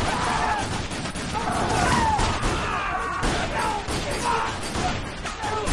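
Heavy gunfire in a movie shootout: rapid shots and crashing impacts, with shouting voices mixed in.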